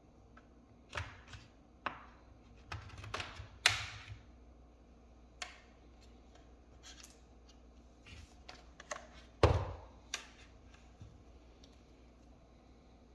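Irregular clicks, taps and knocks of small hard objects being handled during work on a laptop, with two louder knocks, one about three and a half seconds in and one about nine and a half seconds in.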